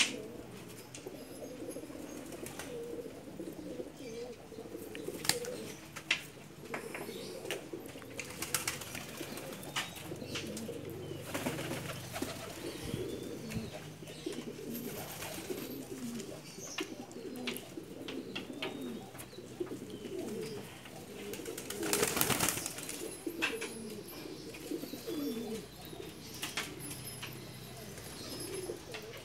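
A flock of domestic racing pigeons cooing, many low, bending coos overlapping without a break. Scattered sharp clicks and a brief louder rush of noise about two-thirds of the way through sit over the cooing.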